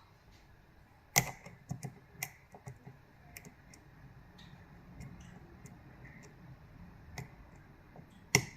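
Metal lock pick working inside the keyway of a Yale 2100 lock under tension: a string of small, irregular ticks with a few sharper clicks, the loudest about a second in and another near the end.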